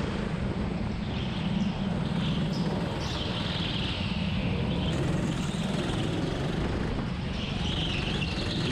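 Rental go-kart engine running steadily under way, heard from the driver's seat as the kart laps the track.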